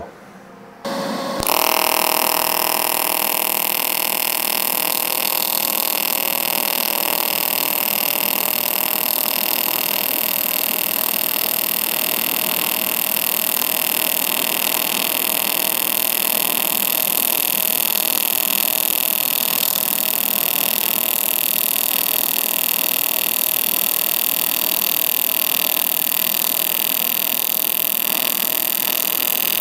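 AC TIG welding arc on thin aluminium from an HTP Independence 210 AC/DC, running a square wave at 40 Hz with 75% electrode-negative balance: it strikes on high-frequency start about a second in, then holds a steady, loud buzzing hiss.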